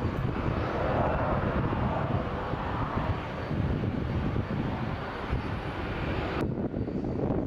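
Jet airliner engines, a steady dense noise, that cuts off abruptly about six and a half seconds in, leaving a lower rumble of wind on the microphone.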